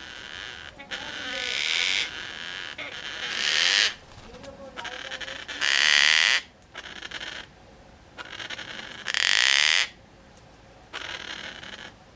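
Juvenile gang-gang cockatoo begging for food: a run of rasping, hiss-like calls, each up to about a second long, with the loudest two near the middle.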